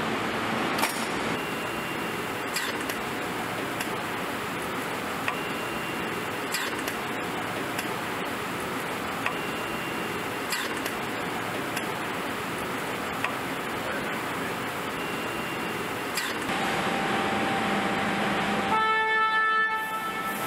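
Engine assembly line machinery running: a steady mechanical hiss with scattered sharp clicks and a few short high beeps. Near the end a loud buzzing alert tone sounds for about a second.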